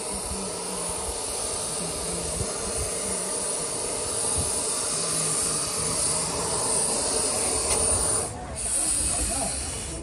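Steam hissing steadily from the HG 3/4 No. 1 rack-and-adhesion steam locomotive as the train runs, cutting out briefly about eight seconds in and then resuming.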